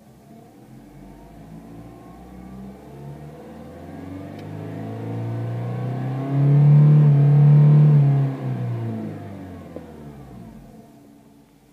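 Honda CR-Z's 1.5-litre four-cylinder engine and exhaust under acceleration, the note building and rising in pitch as the car approaches, loudest about six to eight seconds in, then dropping in pitch and fading as it moves away.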